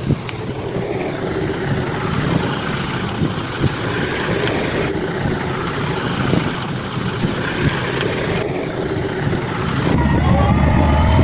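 Bulldozer's diesel engine running, with scattered knocks and clanks from the machine. Near the end, a louder, deeper engine drone sets in.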